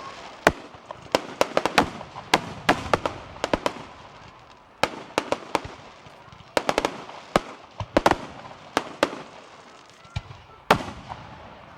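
Fireworks display: an irregular string of sharp bangs and crackles, often several in quick succession, over a steady background hiss.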